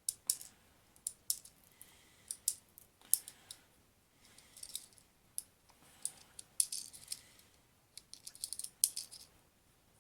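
Small sharp clicks and rattles of airsoft pellets being pushed one by one into a Galaxy G12 spring pistol's magazine, loaded backwards against its spring, at about one to two clicks a second.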